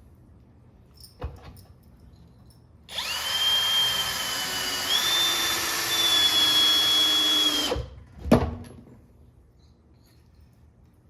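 Cordless drill driving a screw into wood, its motor whining steadily for about five seconds and stepping up slightly in pitch midway. A knock comes a second before it starts and a sharper knock just after it stops.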